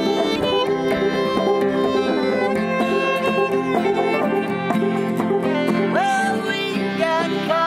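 Acoustic fiddle playing a bowed instrumental break, with strummed acoustic guitar and picked banjo behind it.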